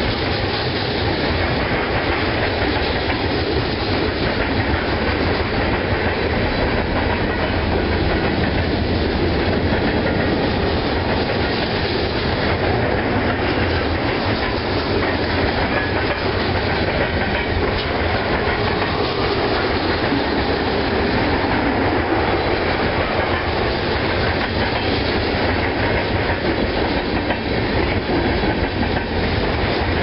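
Freight train cars rolling past close by: a steady, loud rolling noise of steel wheels on the rails, with no change in level.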